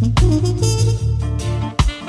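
Jazz-funk band music: a deep electric bass line holding low notes under a melodic line, with sharp drum hits about a quarter of a second in and near the end.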